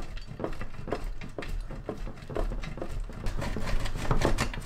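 Block of cheese being grated on a stainless steel box grater: quick repeated rasping strokes, about three a second.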